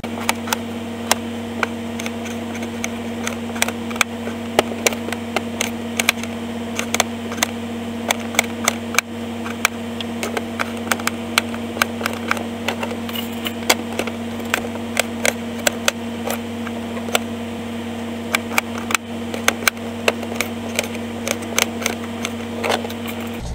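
Sped-up time-lapse audio of a knife chopping red potatoes on a plastic cutting board: many quick, irregular clicks of the blade striking the board over a steady hum.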